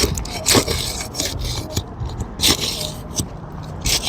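Metal nail-removal hook scraping under an asphalt shingle in a few rasping strokes, grinding against the shingle and working at a roofing nail that is stubborn to come out.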